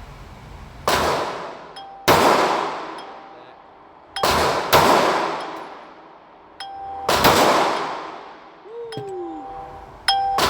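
Six shots from a Canik Mete MC9 Prime 9mm pistol fired at irregular intervals, two of them in quick succession about halfway through, each with a long echoing tail. Thin metallic pings ring out between some of the shots.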